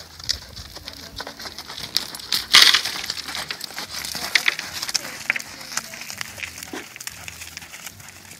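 A ridden horse going around a sandy pen: hooves in the sand and clinking tack, heard as irregular clicks and scuffs, loudest in a brief burst as it passes close by about two and a half seconds in.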